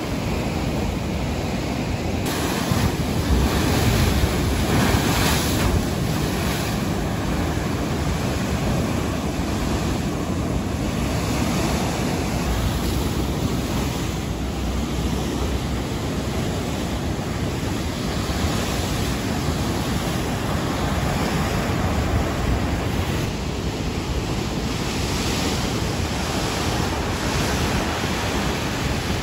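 Rough sea surf breaking and crashing against a concrete seawall, a continuous rushing that surges louder a few seconds in. Wind buffets the microphone.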